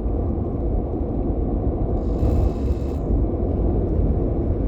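Steady low rumbling background noise, with a brief faint hiss about two seconds in.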